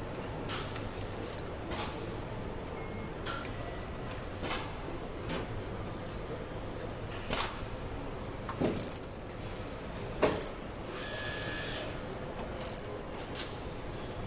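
Car assembly line sound: a steady hum of factory machinery with irregular clicks, knocks and metallic clanks from hand tools and parts being fitted. The loudest is a sharp knock about ten seconds in, followed by a brief hiss.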